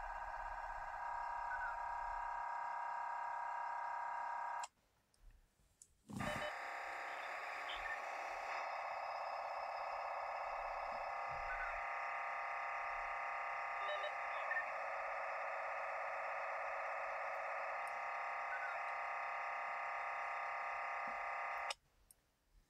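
Steady electronic buzz of a DMR digital radio signal heard as audio, cutting out for about a second and a half around five seconds in and stopping shortly before the end.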